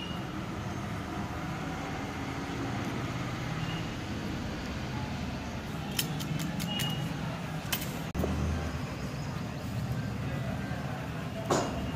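Steady background hum and noise, with a few light clicks about halfway through.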